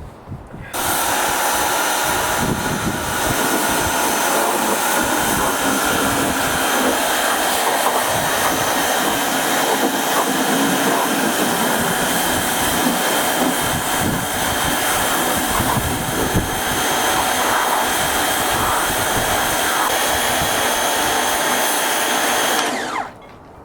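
Pressure washer spraying grimy used ATV rims clean: a steady, loud hiss of spray with a high motor whine. It starts about a second in and shuts off near the end, the whine falling as the motor winds down.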